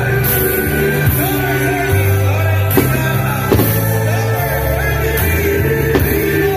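Loud rock-style music with singing and a heavy, held bass line. Two sharp bangs cut through about three seconds in.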